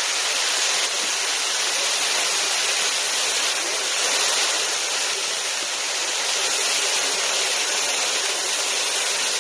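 Yakisoba noodles and vegetables sizzling loudly on a thick iron teppan griddle, a steady hiss with no letup.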